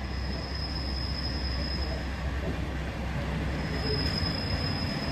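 Class 810 diesel railbus and its trailer car rolling slowly in, wheels giving a thin, steady high squeal that drops out about two seconds in and returns near the end, over a low steady rumble.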